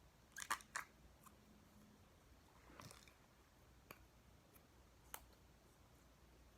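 Near silence broken by a few faint, scattered clicks and crackles from handling slime.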